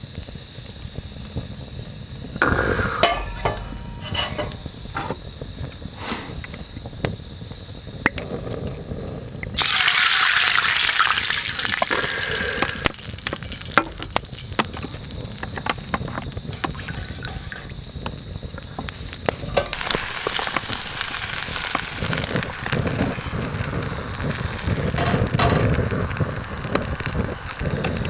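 Liquid hitting hot rendered steak fat in a small metal cup over a wood fire: a sudden loud sizzle about ten seconds in that fades over a few seconds, with a second stretch of sizzling later, as wasabi dressing and fat are reduced into a sauce. Wood fire crackling throughout.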